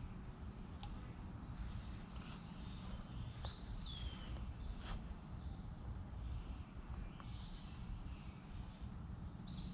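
Creekside ambience: an insect's steady high-pitched drone runs throughout, over a low rumbling noise, and a bird gives a short sliding whistled call a few times, with some faint clicks.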